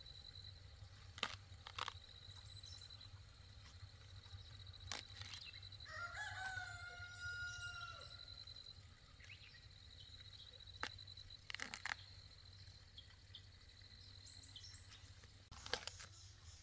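A rooster crowing once, a drawn-out call about six seconds in lasting a couple of seconds, faint in the background. A high, steady buzzing tone comes and goes throughout, with a few sharp clicks.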